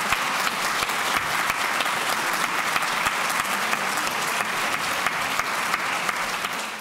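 Audience applauding: a steady patter of many people clapping, which cuts off suddenly near the end.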